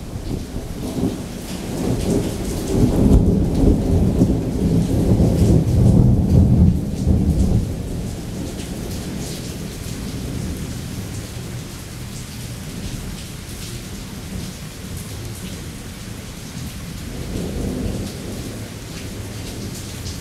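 A long roll of thunder builds about two seconds in, swells twice and dies away after about eight seconds, over steady rain. A fainter rumble of thunder rises near the end.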